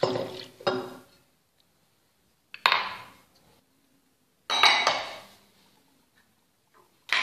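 Metal wire whisk knocking and scraping against a glass mixing bowl while stirring ground chickpea flour, in several short clattering bursts a second or two apart, each sharp at the start and fading quickly.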